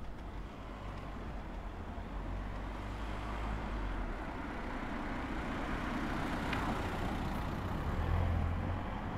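Street traffic: a motor vehicle passing, its engine and tyre noise swelling gradually to a peak about two-thirds of the way through, over a low steady rumble.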